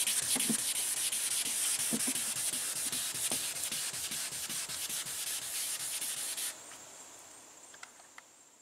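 Wet sandpaper on a foam sanding block rubbed back and forth over a car's clear coat, a scratchy hiss of repeated strokes. This is color sanding to flatten orange peel in the clear. The strokes stop suddenly about six and a half seconds in.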